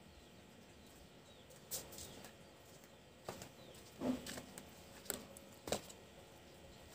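About half a dozen faint, short knocks and clicks, spread irregularly over a quiet background, the loudest a little past the middle.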